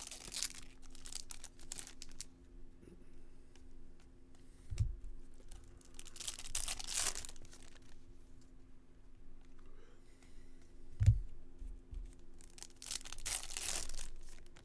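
Foil trading-card pack wrappers being torn open and crinkled in three rustling bursts, with two soft thumps of packs or cards set down on a table, over a faint steady hum.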